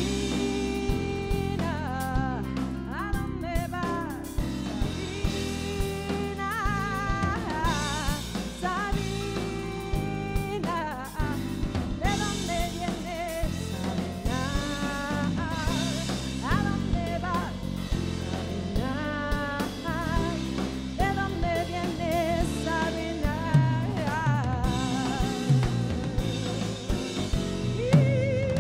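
Female vocalist singing with a wide vibrato over a live band of keyboard, drum kit and guitar, the drums keeping a steady beat.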